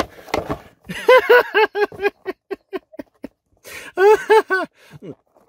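A person's voice making wordless, high-pitched sounds in quick, short syllables, in two runs, the second about four seconds in, after a single knock right at the start.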